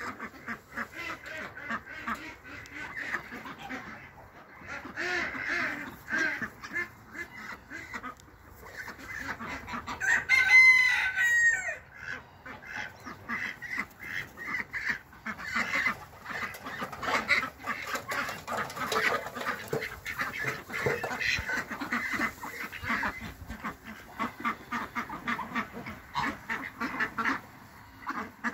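A flock of ducks quacking and chattering continuously, many short calls overlapping. About ten seconds in, a louder, drawn-out bird call stands out for about two seconds.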